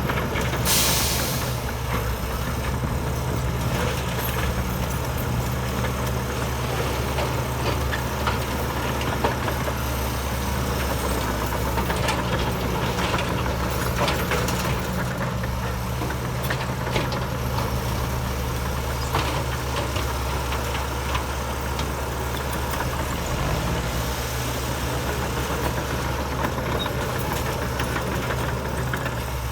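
Heavy diesel engine of earthmoving machinery running steadily, with a short burst of air hiss about a second in.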